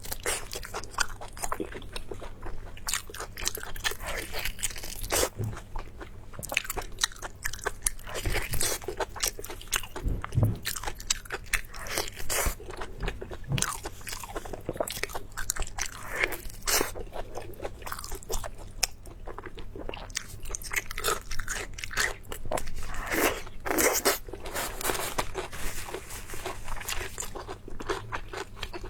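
Close-miked eating: a person biting and chewing crunchy food, with a dense, irregular run of crisp crunches and wet mouth sounds.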